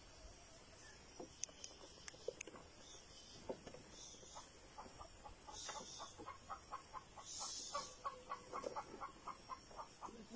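Chickens clucking: faint and sparse at first, then from about halfway through a quick run of short clucks, several a second.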